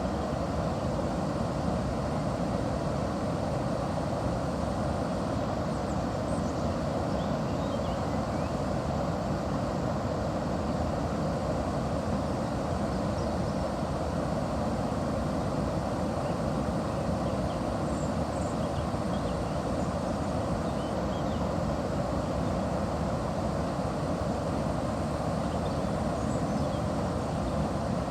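Steady, even rush of river water flowing at a watermill.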